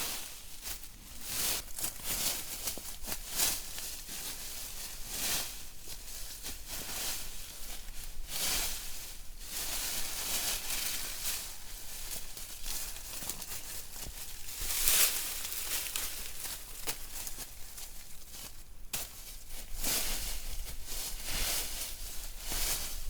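Dry leaves and forest debris rustling and crackling in irregular handfuls as they are gathered and packed onto a lean-to shelter to patch its holes.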